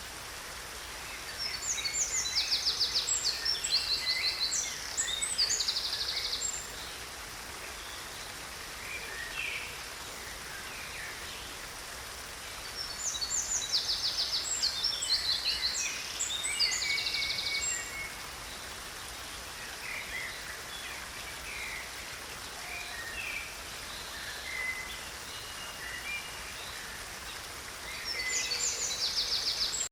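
A songbird sings long, rapid phrases of trills and varied high notes, in bouts about twelve seconds apart, with scattered single notes between. Under it runs a steady hiss of rain.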